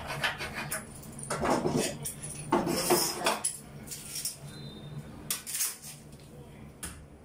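Metal parts or tools clinking and rattling as they are handled, with a few short scraping or rustling noises in between.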